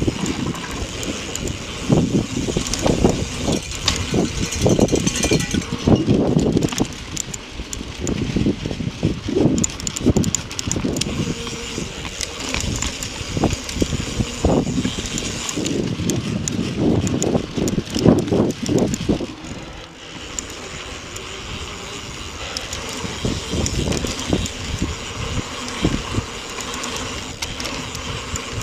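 Mountain bike ridden fast down a dirt trail: tyres on loose dirt and the bike rattling and clattering over bumps, in uneven rumbling bursts. It grows calmer about twenty seconds in, on a smoother stretch of path.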